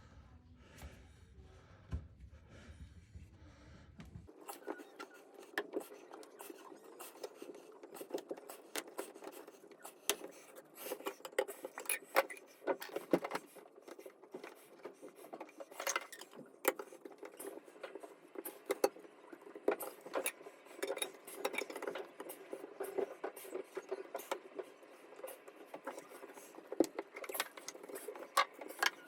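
Hand work on a shower floor drain: tools and hard drain parts being handled, with irregular clicks, taps and scraping. A low rumble stops about four seconds in.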